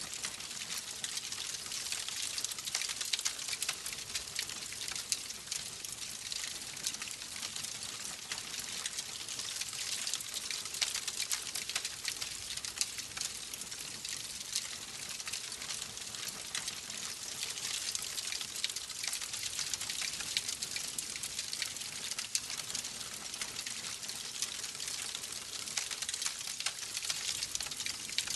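Wood fire crackling steadily, with a dense run of small sharp pops and snaps over a soft hiss.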